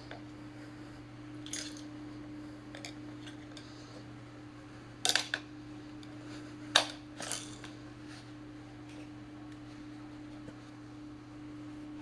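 Metal tire irons clinking against a scooter wheel's metal rim and each other while a 10-inch tire bead is pried over the rim: a few scattered sharp clinks, the loudest about five and seven seconds in, over a steady low hum.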